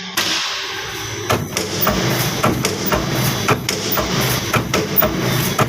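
Welded wire mesh machine running, its welding head clacking in a steady rhythm of about three to four strokes a second over a low hum. The strokes start a little over a second in.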